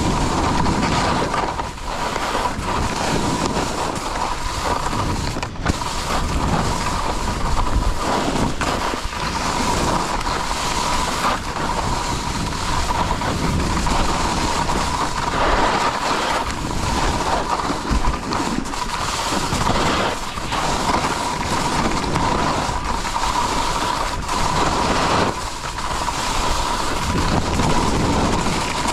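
Skis sliding and scraping over a groomed piste on a downhill run, with wind buffeting the microphone: a loud, continuous rushing noise with a faint steady whine beneath it.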